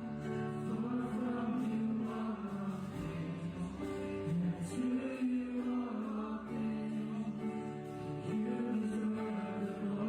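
Slow worship music with held chords that change every second or two, and no clear sung words.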